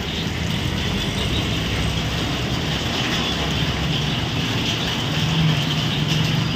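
Motor traffic driving through floodwater: scooter and motorbike engines running over a steady hiss of tyres in water, with one engine hum growing louder about five seconds in.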